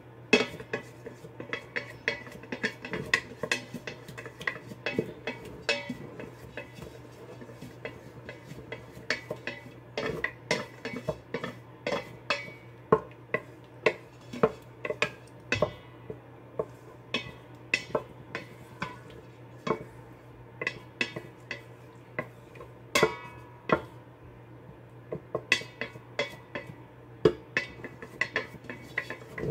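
Wooden spatula stirring thick cherry jam in a stainless-steel pot, mixing in chia seeds: irregular knocks and scrapes of the spatula against the pot's sides and bottom, several a second, over a faint steady low hum.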